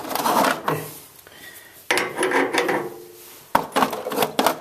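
Metal tools clattering and clinking while being rummaged through and handled, as when picking out the right socket for a wrench: two stretches of scraping and rubbing, then several sharp clinks near the end.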